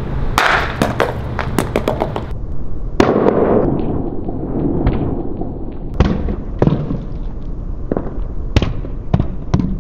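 A glass cookware dish coated in spray-on truck bed liner hitting asphalt after a drop from a roof, then bouncing and clattering in a run of sharp knocks, the loudest about three seconds in. There is no shattering: the coated glass survives the fall without cracking.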